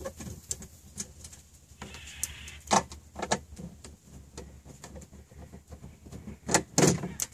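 Scattered clicks, scrapes and knocks of a screwdriver working the screws on a gate opener's hard plastic cover, with louder knocks about three seconds in and again near the end.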